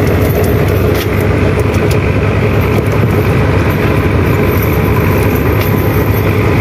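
An engine running steadily with an even low drone, with a few light ticks from handling the net and fish.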